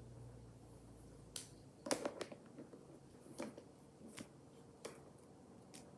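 Small toy figures clicking and tapping against each other and the tabletop as they are handled: a few light, scattered clicks, the loudest cluster about two seconds in.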